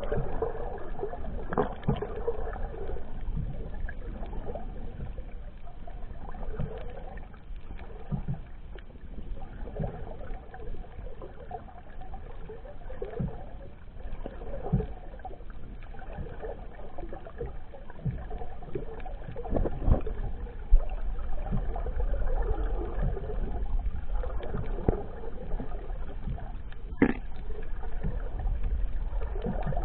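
Muffled underwater sound picked up by a camera in a waterproof housing: a steady low rumble of moving sea water, with scattered soft knocks and one sharper click near the end.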